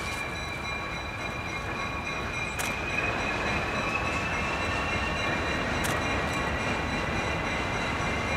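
Diesel locomotive approaching slowly on rails, running with a steady rumble and a thin high whine. The whine climbs slightly and the sound grows a little louder about three seconds in.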